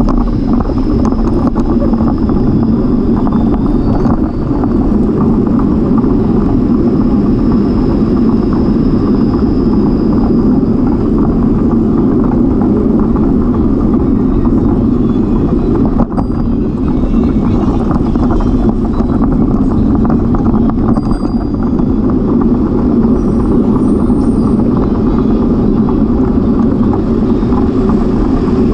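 Steady rushing wind and road noise on the microphone of a camera riding on a moving bicycle.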